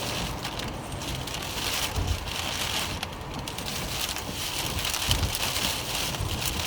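Rain and wind in a nighttime thunderstorm: a steady hiss of rain with a low rumble underneath, the high hiss swelling and fading about every two seconds.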